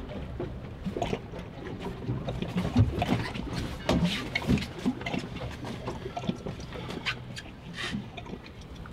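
Water slapping against a fishing boat's hull, with a steady low hum underneath. Irregular knocks and clatter on the deck and gear are thickest in the middle of the stretch.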